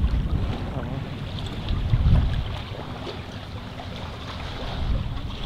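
Wind buffeting the microphone in gusts over the steady rush of water along a moving catamaran's hulls. The rumble swells about two seconds in and again near the end.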